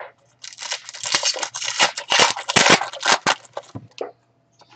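A trading-card pack wrapper being torn open and crinkled as the cards are pulled out, a dense crackling rustle lasting about three and a half seconds.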